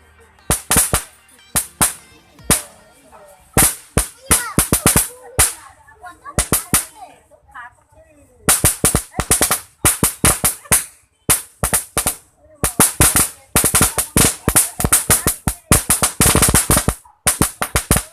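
Paper roll caps going off in a string of sharp pops, scattered at first and then a rapid, dense run of crackling pops from about halfway through.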